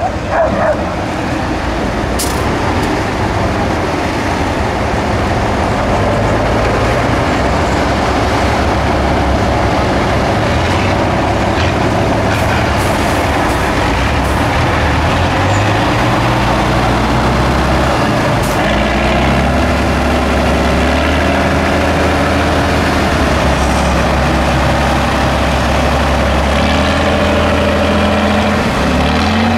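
Eight-wheel-drive Tatra trial truck's diesel engine working under load as it crawls through mud and water. The engine is rough at first, then runs at steady revs that step up and down several times in the second half.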